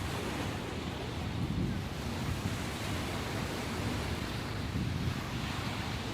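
Ocean waves washing continuously onto the shore, a sea still rough after a typhoon, rising and falling gently in a steady rush.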